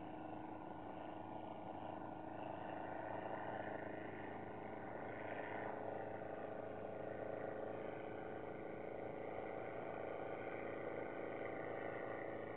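Affordaplane ultralight aircraft's engine and propeller droning steadily in flight at a distance, a faint hum holding several steady pitches.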